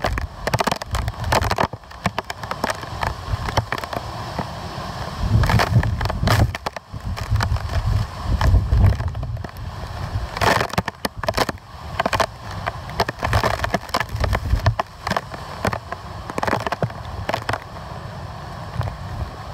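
Hurricane-force wind buffeting the microphone in repeated heavy gusts, with rumbling surges and sharp crackles over a constant rush.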